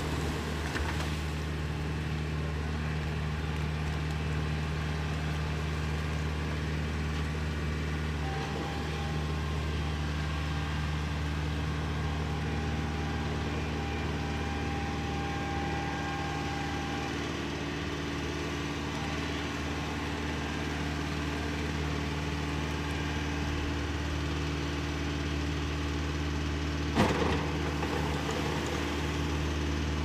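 Farm tractor engine running steadily under load while a rotary puddling harrow churns a flooded rice paddy, with a sharp knock about three seconds before the end.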